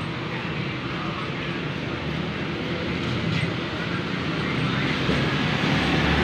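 Street traffic noise: a motor vehicle's engine running, growing louder toward the end.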